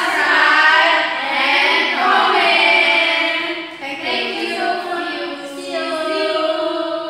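Several young women singing together in unison, in two phrases with a brief dip between them.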